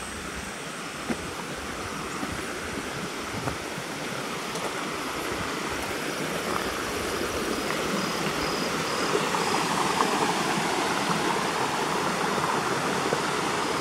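Steady rush of flowing water, growing gradually louder.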